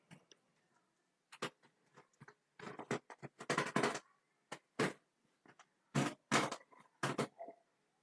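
Cardboard and plastic packaging of an LED panel light pack being handled and opened: irregular rustling and scraping with sharp clicks and taps.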